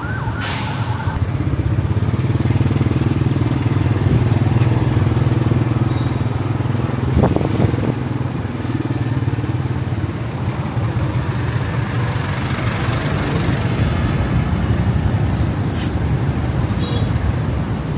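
Steady engine and road noise of a moving vehicle in traffic, with a low hum throughout and a brief click about seven seconds in.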